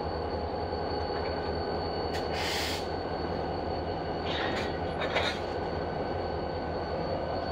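Portland and Western diesel-electric locomotive running as it creeps slowly along the track: a steady low engine rumble with a faint high whine. There is a short hiss of air about two and a half seconds in and two brief noisier bursts a little after four and five seconds.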